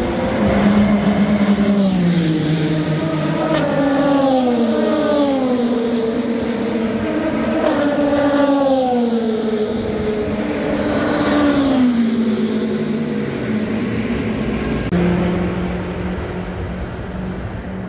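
Race car engines at speed going past one after another, each engine note falling in pitch as it goes by. About fifteen seconds in the sound switches abruptly to a steadier, quieter engine drone.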